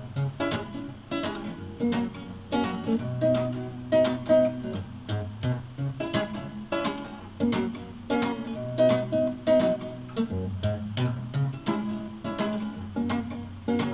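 Acoustic guitar strummed in a steady rhythm, with chords struck several times a second and ringing between the strokes.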